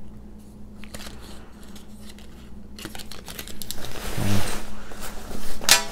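Nylon coach jacket rustling and crinkling as it is handled and turned over, with light clicks and taps of the hang tag at first; the rustling gets louder about halfway in.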